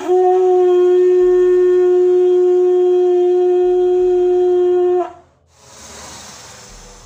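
A buffalo-horn tetuang blown in one long steady note with a bright, buzzy tone, held about five seconds and cut off sharply. A softer rushing noise follows near the end.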